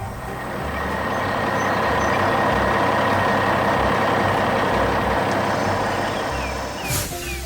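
Truck engine sound effect running steadily, with a brief sharp hiss near the end.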